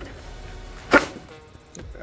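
A single sharp wooden knock about a second in, as a strip of wood is pushed and tapped into a snug friction fit in a plywood rip fence. Lighter wood-handling sounds surround it, and faint background music plays.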